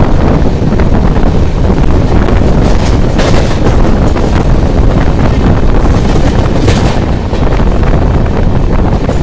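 Heavy wind buffeting the microphone from the open door of a fast-moving passenger train, over a steady rumble of the coach running on the rails. There is irregular clatter as the wheels cross the junction's points.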